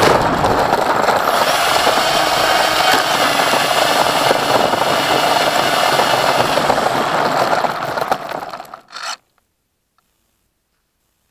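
Electric RC plane heard from its own onboard camera: loud rushing and scraping as it skims and touches down through grass, with a thin motor whine that dies away partway through. The scraping fades, then stops suddenly about nine seconds in as the plane comes to rest.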